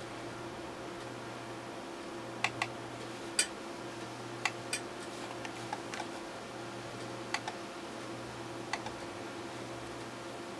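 Computer mouse buttons clicking: about a dozen short, sharp clicks, several in quick pairs like double-clicks, over a steady background hum.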